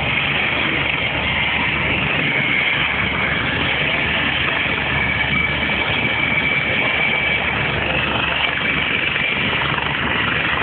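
Black Hawk-type military helicopter's turbine engines running on the ground, a steady loud noise with a high turbine whine.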